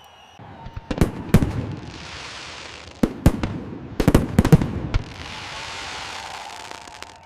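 Aerial fireworks going off. Sharp bangs come in clusters about a second in, around three seconds and again around four seconds, with a crackling hiss lingering between and after the bursts.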